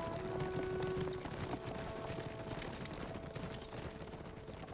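Rapid hoofbeats of horses, under background music of long held notes, both fading away toward the end.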